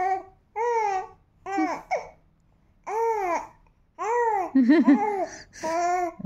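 Young baby cooing and babbling: about six short, high-pitched vocal sounds in a row, each rising and falling in pitch, with brief pauses between them.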